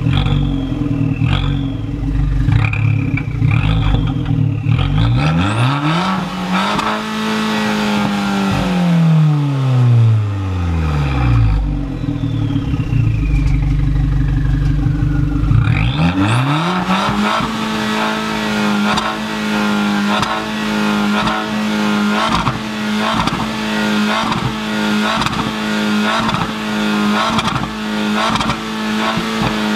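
Abarth 595C Competizione's 1.4-litre turbocharged four-cylinder revved while parked, heard through its Record Monza quad-pipe exhaust with the exhaust valves open. A few short throttle blips at first, then the revs climb and fall back, and from about halfway the revs are held steady and high until they drop right at the end.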